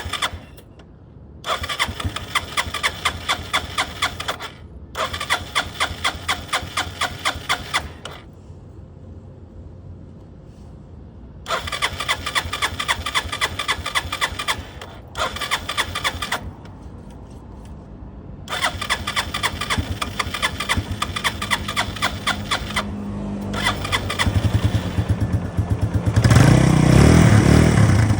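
Motorcycle electric starter cranking the engine in about six separate attempts of a few seconds each, each with an even pulsing rhythm. The engine is hard to start and won't fire. Near the end it catches and runs, sputtering at first and then getting louder.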